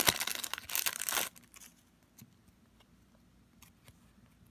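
A Panini Adrenalyn XL trading card pack wrapper being torn open and crinkled for about the first second. It then goes quiet, with a few faint light ticks as the cards are handled.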